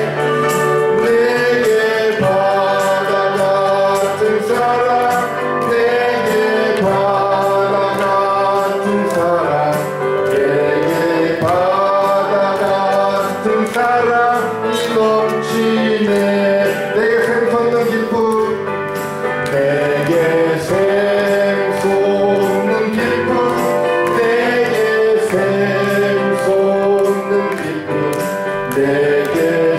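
A gospel song sung by male and female voices over electronic keyboard accompaniment, with sustained low notes and a steady beat.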